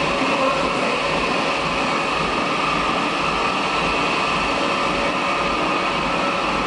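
Machinery running with a steady whir: an even mechanical noise with a few faint steady tones and no change or stop.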